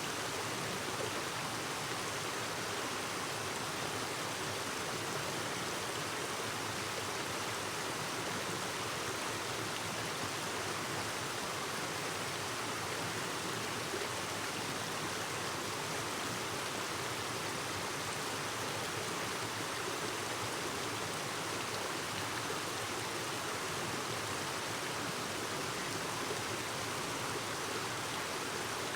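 Clear mountain stream flowing and babbling over rocks, a steady rush of water.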